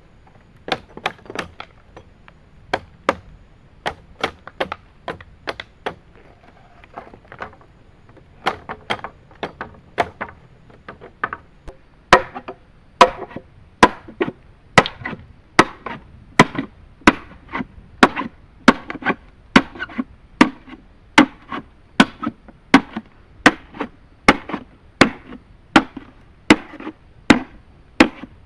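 Repeated chopping strokes of a blade into wood: scattered and sometimes in quick pairs at first, then a steady, louder rhythm of about one stroke a second from about halfway.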